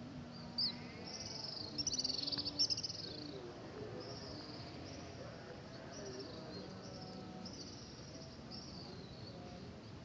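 A flock of small birds flying overhead, giving high, buzzy chirps one after another, loudest about two seconds in.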